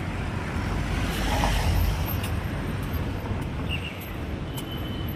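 Road traffic noise, a steady rumble of passing vehicles, with one vehicle passing louder about one to two seconds in.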